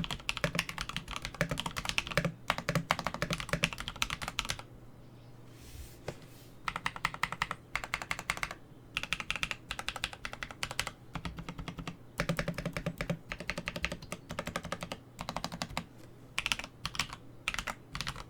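Typing on a Kemove Snowfox mechanical keyboard with Drop Holy Panda tactile switches lubed with 205g0: fast runs of loud, clacky keystrokes in bursts, with a pause of about two seconds near the start.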